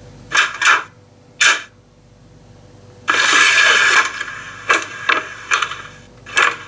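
Electronic sound from an H0 model diesel locomotive's sound decoder: several short horn toots, a longer blast about three seconds in, then more short toots.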